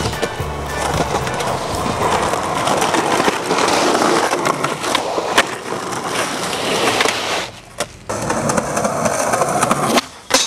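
Skateboard wheels rolling over concrete and asphalt, with sharp clacks of the board popping and landing; the sound dips briefly about three-quarters of the way through, and a loud clack comes near the end.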